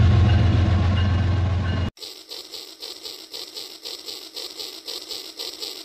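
Battery-powered toy train running along plastic track: a steady low hum with a faint whine, cutting off abruptly about two seconds in. A quieter, even rattle of about four beats a second follows.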